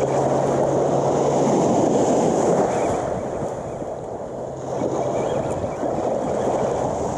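Small surf waves washing through shallow water, with wind buffeting the microphone; a faint low hum comes and goes underneath.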